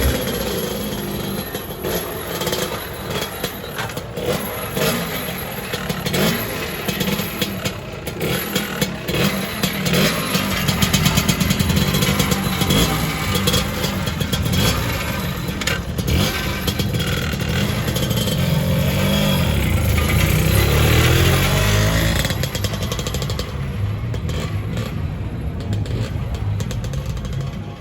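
Lambretta scooters' two-stroke engines running and riding past one after another, their pitch rising and falling as they pass and pull away.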